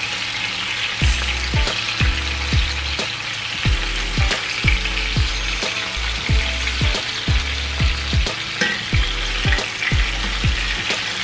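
Pieces of red bream browning in hot oil in a nonstick frying pan, sizzling and crackling steadily, with occasional small clicks of a metal fork turning them. A regular deep bass beat of background music runs underneath.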